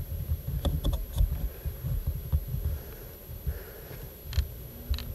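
Uneven low rumbling and thumping on the microphone, with a few faint clicks about a second in and again near the end.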